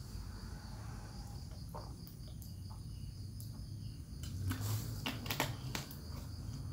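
Steady high insect chirring over a low hum. A little past the middle come a handful of sharp clicks and crackles from a plastic water bottle being drunk from and lowered.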